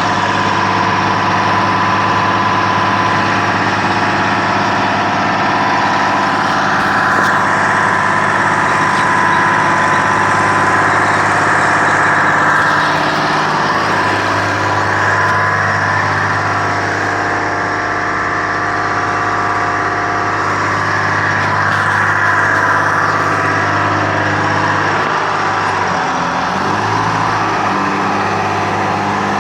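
Texoma 900 drill rig's engine running steadily with a high whine above it. The engine note changes pitch about halfway through and shifts again several times near the end.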